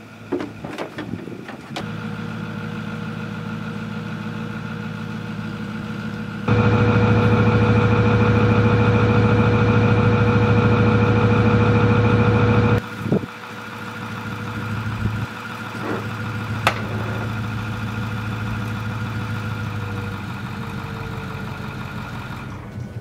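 Pickup truck engine idling steadily, left running to recharge its battery after a week of sitting. It is much louder for about six seconds in the middle, close beside the truck, and a few sharp clicks come in the second half.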